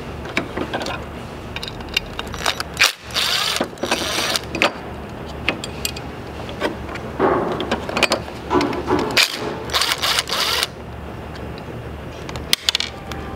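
Cordless impact driver with a Phillips bit running in short bursts, backing out the small screws that hold a truck's front radar sensor to its bracket. The bursts come in two clusters, a couple of seconds in and again about seven to ten seconds in, with small clicks of the tool and parts between.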